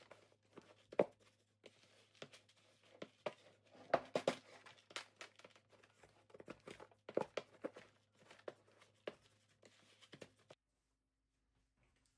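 Wooden spoon stirring damp wood-pellet sawdust substrate in a plastic bucket: irregular scrapes, crunches and knocks over a faint steady hum, stopping suddenly about ten seconds in.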